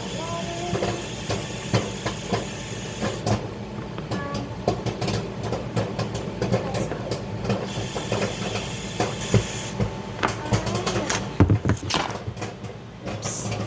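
Microwave oven running with a steady hum while popcorn pops inside in scattered small clicks. Two stretches of hiss come in and drop out.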